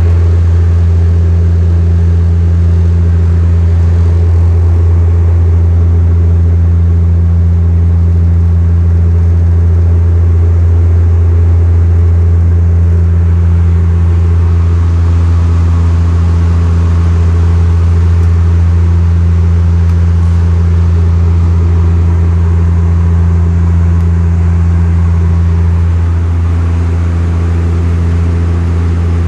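Cabin drone of an ATR 72's twin Pratt & Whitney PW127 turboprops and propellers in flight: a loud, steady low hum with a few steady tones above it, easing slightly a few seconds before the end.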